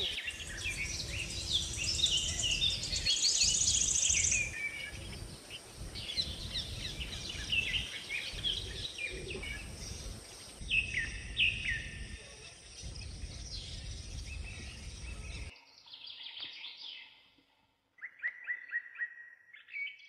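A chorus of many birds calling and chirping, made of short, quick, falling calls, over a low rumble of wind on the microphone. About three-quarters of the way through, the rumble cuts off suddenly and only a few fainter chirps are left.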